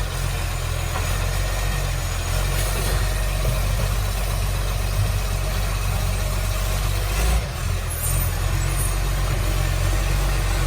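Diesel engine of a garbage truck with a leaking exhaust running steadily. About seven seconds in there is a short, sharp burst of noise.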